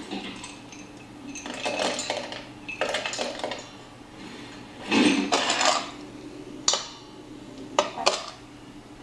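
Dishes clattering in short bursts, with a few sharp clinks near the end, as of a bowl being handled.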